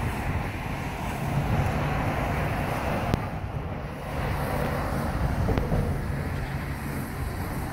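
Road traffic driving past over a bridge, camper vans and a car swelling and fading in turn, with wind buffeting the microphone.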